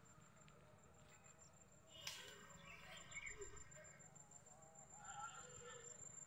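Near silence: faint outdoor background with a sharp click about two seconds in and faint distant voices.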